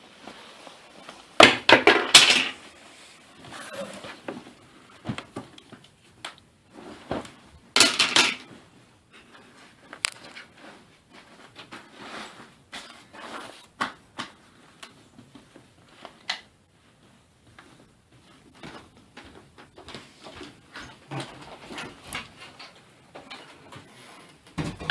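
Irregular clattering and handling noises: scattered clicks and knocks, with two louder noisy bursts, one about two seconds in and one about eight seconds in.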